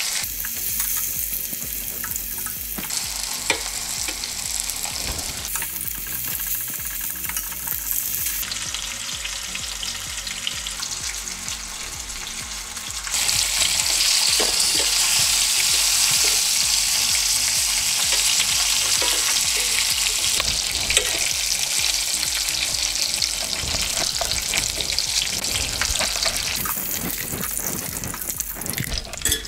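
Herring pieces coated in flour frying in vegetable oil in a stainless steel pan, with a steady sizzle that steps up in level about halfway through as the fish browns. Now and then a fork clicks against the pan as the pieces are turned.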